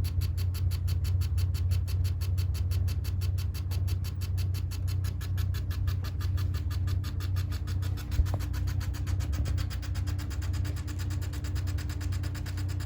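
Panasonic CS-226CF-W room air conditioner running with a low hum and a fast, even rattle (kata-kata), several clicks a second, the abnormal noise the unit has developed. One sharper click stands out about eight seconds in.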